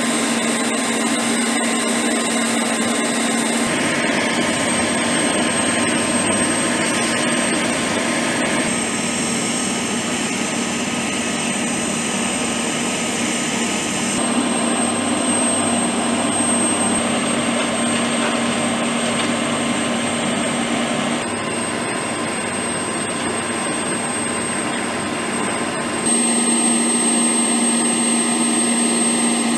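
UH-1Y Venom helicopter's twin turboshaft engines and rotor running steadily, with a constant high turbine whine over the rotor noise. The sound changes abruptly every few seconds.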